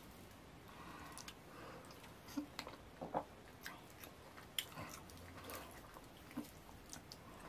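Close-miked wet chewing of fufu and ogbono soup, with several sharp, short mouth smacks and clicks spread through, and the soft squish of fingers pinching off more fufu.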